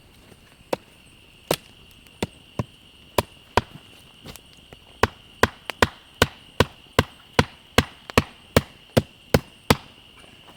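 Sharp blows on wood: a tool repeatedly chopping or driving into timber. A few scattered strikes come first, then from about five seconds in a steady run of about two to three blows a second.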